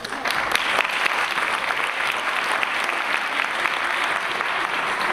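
Audience applauding: dense clapping that swells at the start and holds steady, easing a little near the end.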